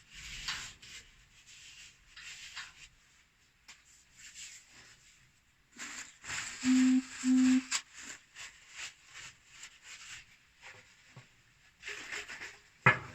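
Rubbing, scraping and light clicks of plumbing parts being handled and worked by hand, with two short low-pitched tones about half a second apart near the middle.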